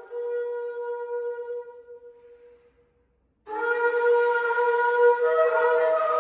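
A shofar sounds one long held note that fades out about three seconds in. After a moment's silence, shofar blasts start again more loudly, with a second, higher pitch joining near the end, as if more than one horn is sounding at once.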